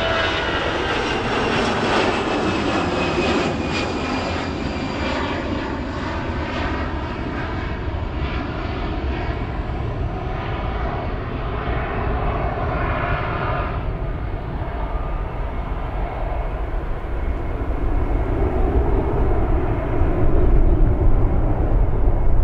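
Airliner's jet engines as it passes, the whine falling in pitch over the first few seconds, then steady engine noise whose high end fades away about two thirds of the way through. A low rumble grows louder near the end.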